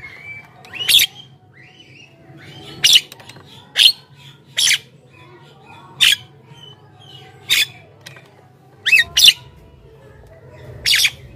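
Javan myna giving a series of short, harsh squawking calls, about one a second, with soft chattering in between.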